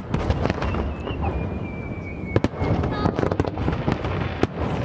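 Fireworks display: rapid crackling bangs over a steady low rumble, with a thin whistle sliding slowly down in pitch from about one second in.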